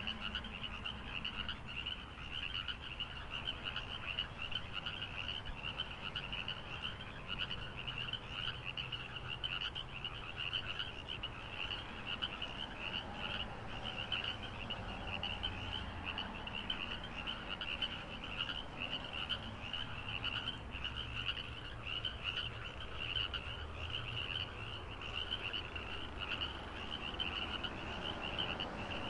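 A chorus of frogs calling in fast, repeated high-pitched trills, many voices overlapping continuously, over a low steady rumble.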